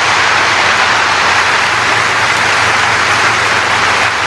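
Large audience applauding steadily after a line in the sermon.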